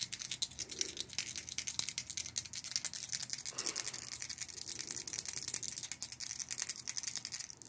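Three six-sided dice shaken in a cupped hand, a rapid continuous clicking rattle, then tossed onto the tabletop with a louder clatter at the end.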